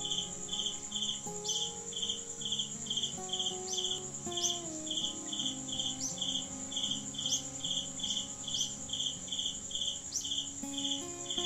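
Crickets chirping in an even pulse, about two chirps a second, over a continuous high insect trill, with soft sustained background music underneath.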